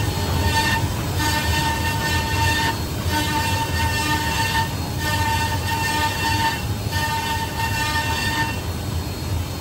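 Multi-spindle CNC wood router, a row of 32 spindles, cutting a row of rotating wooden chair-leg blanks. Steady machine noise with a low rumble under a high whine that cuts in and out in spells of about a second and a half.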